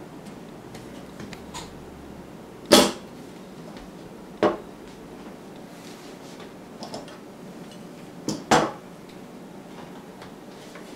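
Metal-framed miter saw knocking against a wooden tabletop as it is handled and set down: a sharp knock about three seconds in, a lighter one a second and a half later, and a quick double knock about three-quarters of the way through.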